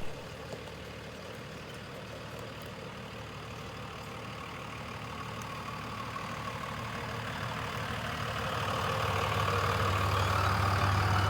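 Truck engine running with road noise, a steady low hum under a rushing haze that grows gradually louder.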